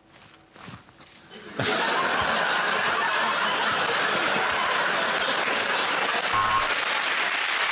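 Studio audience breaking into laughter and applause about a second and a half in, after a quiet moment; the laughing and clapping then go on steadily.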